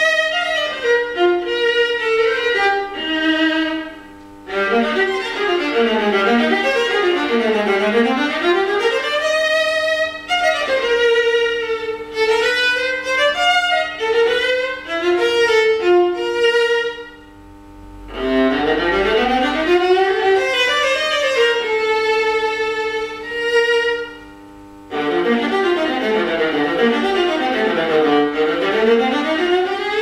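Solo viola made by luthier Petko Stoinov, bowed: fast arpeggio runs sweep down and back up across the strings. The playing breaks off briefly about four, seventeen and twenty-four seconds in.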